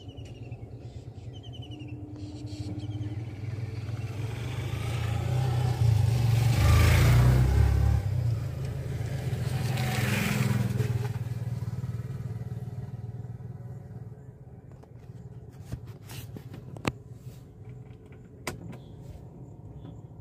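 Road vehicles passing close by: engine and tyre noise swells to a loud peak about seven seconds in, with a second pass, a motorcycle, around ten seconds, then fades away. A few sharp clicks near the end.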